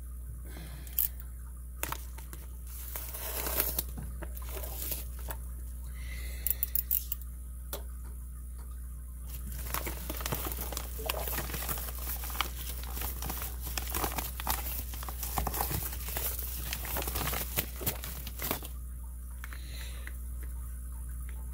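A package being opened by hand: paper or plastic packaging tearing and crinkling, with scattered clicks and rustles. A steady low hum runs underneath.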